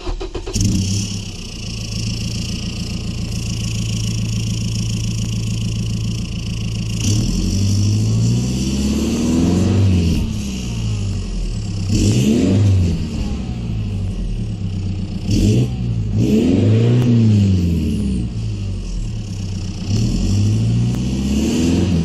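2.8L LWN Duramax four-cylinder turbo-diesel of a 2017 Chevy Colorado, DPF deleted and running through a 3-inch Flo-Pro exhaust with muffler: it fires up at the start and idles steadily, then from about seven seconds in it is revved about five times, each rev rising and falling back to idle.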